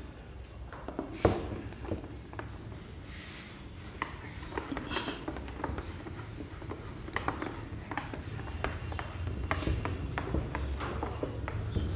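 A cloth duster wiping a whiteboard clean, in repeated uneven rubbing strokes, with a single knock about a second in.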